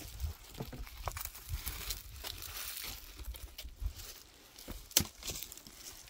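Dry firewood twigs crackling and snapping irregularly, with one sharp snap about five seconds in, over a low rumble.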